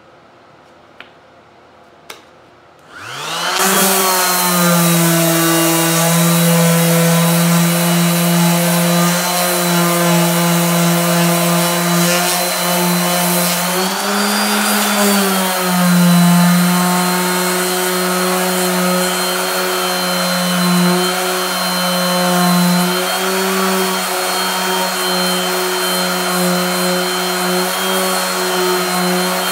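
Dual-action random orbital sander starting up about three seconds in, after a couple of faint clicks, then running steadily against the aluminum snowmobile tunnel as it sands. Its hum rises briefly in pitch near the middle and then settles back.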